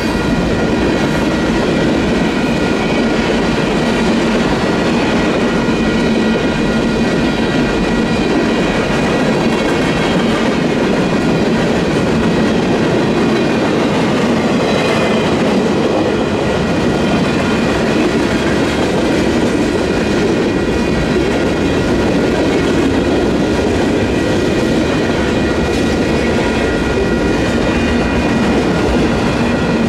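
Union Pacific manifest freight cars rolling steadily through a road crossing, their wheels clattering over the crossing. The crossing's two WCH electronic bells ring without a break the whole time, because the gates are still down.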